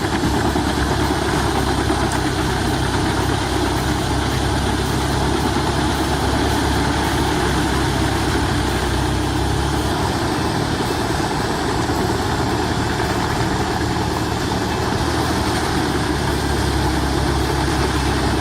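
A large machine engine running steadily with a strong low hum. It cuts off abruptly at the end.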